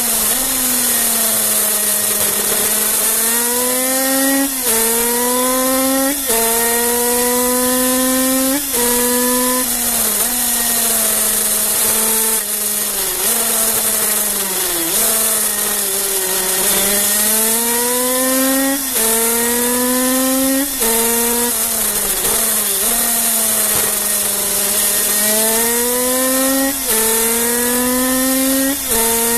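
Kreidler 50cc two-stroke racing engine at high revs. Its pitch climbs through each gear, breaks briefly at several quick gear changes, and falls off as the bike slows for corners. Wind rushes over the onboard microphone.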